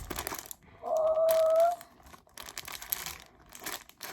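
Plastic packaging crinkling and rustling as velvet do-rags are handled and unwrapped. About a second in comes a short, high, steady whine-like tone lasting under a second, the loudest sound.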